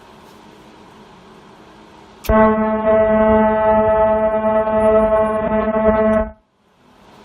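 A low steady machine hum. About two seconds in, a loud, steady buzzing tone on one pitch with many overtones starts abruptly, holds for about four seconds, then cuts off sharply.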